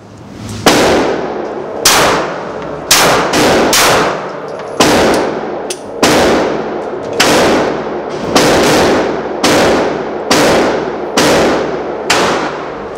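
A Glock 19 9mm pistol fired about a dozen times at a slow, steady pace of roughly one shot a second, with a quicker pair near the middle. Each shot is a sharp crack with a booming echo off the walls of the indoor range.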